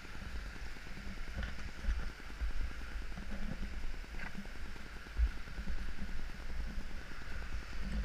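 Steady hiss of a small waterfall's water running down a rock face, with low thumps and rumble of footsteps and handling on the handheld microphone, several about half a second apart.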